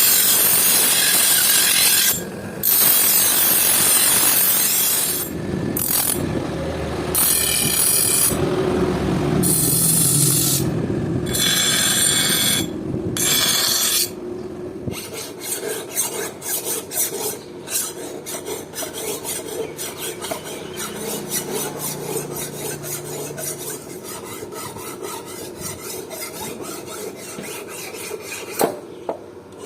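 A steel knife blade being sharpened by hand, rasping against an abrasive in strokes. Long, loud strokes with short breaks give way about halfway through to quicker, lighter strokes.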